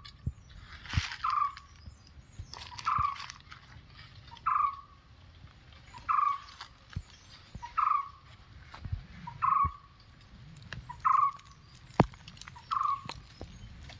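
A bird giving the same short call over and over, about once every one and a half seconds, nine times in all, with scattered sharp clicks and rustles between the calls.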